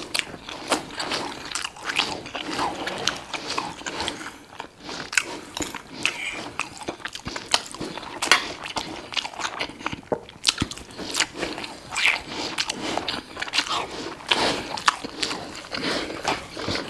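Close-miked chewing of Greek beef patties and rice: a steady run of wet mouth smacks and small clicks.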